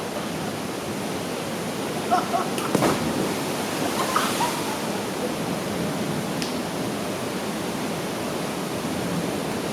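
Steady rush of a waterfall pouring into a swimming hole, with a short sharp knock about three seconds in.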